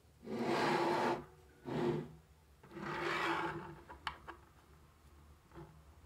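Small magnetic balls rubbing and rattling against a surface, three times in the first few seconds, followed by a few sharp clicks.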